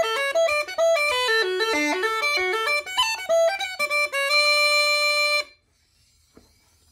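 Uilleann pipes playing a fast Irish reel on the chanter, a quick run of ornamented notes that ends on one long held note, which cuts off suddenly about five and a half seconds in, leaving near silence.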